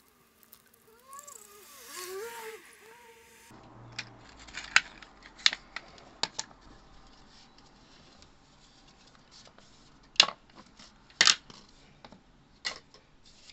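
Blue plastic water pipe being handled and cut: a series of about seven sharp, separate clicks and snaps, the loudest a little after ten seconds in. Before them comes a brief wavering pitched sound.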